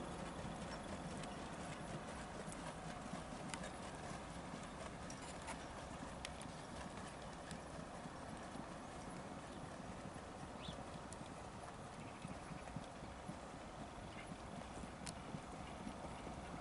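Hoofbeats of harness-racing trotters pulling sulkies on a dirt track, scattered clicks over a steady background hiss.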